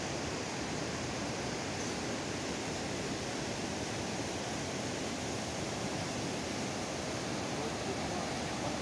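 Steady rush of a large, swollen mountain river running fast over rocks and rapids.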